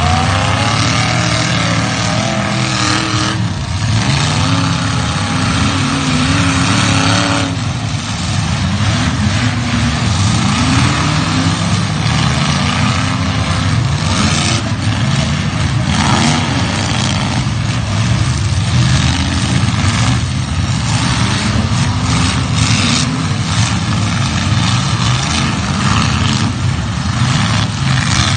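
Demolition derby cars' engines running loud and revving up and down, more than one at a time.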